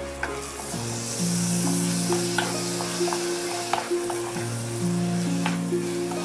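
Rice, red lentils and spices frying in a pot with a steady sizzle, stirred with a wooden spatula that scrapes and knocks against the pot in scattered short clicks. Background music with sustained notes plays underneath.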